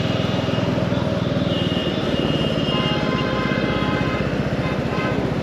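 Royal Enfield Meteor 350's single-cylinder engine running steadily under way, its exhaust beats pulsing evenly.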